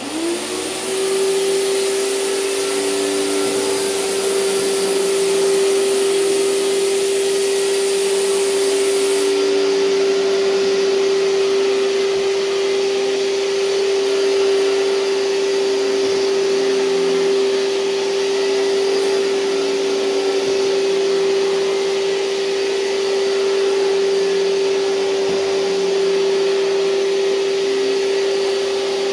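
A 2003 Hoover TurboPower 5000 canister vacuum switching on, its motor spinning up to a steady high whine within about a second, then running loudly as it vacuums. The highest part of its hiss drops away about nine seconds in.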